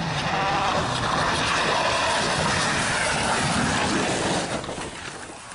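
Citroën rally car driving hard on a gravel road: engine note under a loud rush of tyre and gravel noise, which fades about four and a half seconds in.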